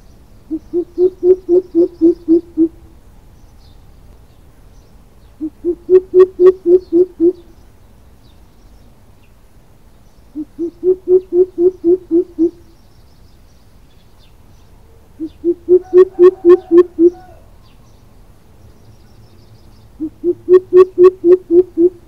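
Greater coucal giving its deep hooting call: five bouts of about nine hoots each, about four hoots a second, the first notes of each bout softer and the rest loud, a bout every five seconds or so.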